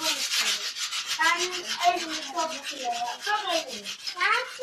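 Sandpaper rubbing over the metal frame of a child's bicycle in quick back-and-forth strokes, scuffing it before spray-painting. A child's high voice talks over it from about a second in.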